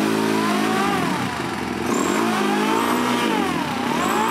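Honda CRF450 single-cylinder four-stroke engine on a go-kart being revved up and down a few times, its pitch rising and falling with each blip of the throttle.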